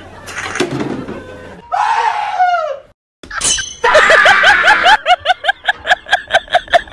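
Edited comedy sound effects: a noisy crash, then a falling tone, then after a brief gap a fast run of short, high, chirping notes, about five a second.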